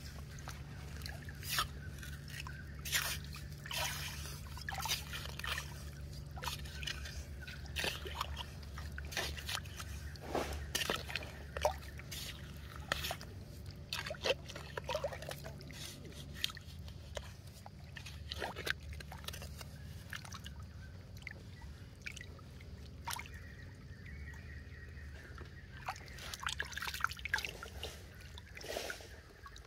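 A metal pipe digging and scooping through wet sand and shallow muddy water: irregular splashing, sloshing and dripping, over a low steady hum.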